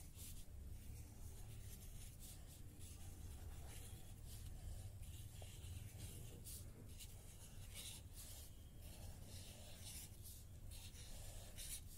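Red marker pen drawing circles on paper, a series of faint scratchy strokes one after another, over a steady low hum.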